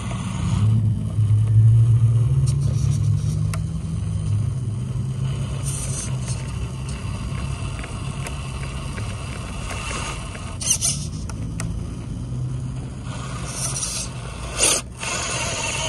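Hobby Plus CR18-P EVO Pro small-scale RC rock crawler's electric motor and drivetrain running at low speed as it climbs a boulder. A few short high squeaks cut in, the loudest near the end.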